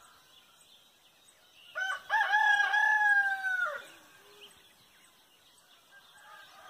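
A rooster crowing once about two seconds in: a short opening note, then a long held call that drops in pitch at the end.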